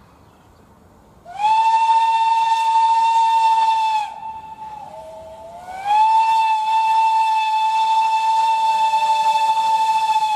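Steam locomotive whistle sounded in two long blasts, about three and four and a half seconds long. Each blast slides up in pitch as it opens, then holds one steady tone. A softer, lower whistle note sounds in the gap between them.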